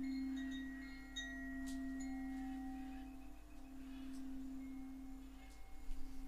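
Tibetan singing bowl's sustained low hum, swelling and easing slightly, over jungle ambience of birds calling with short whistled and arched notes.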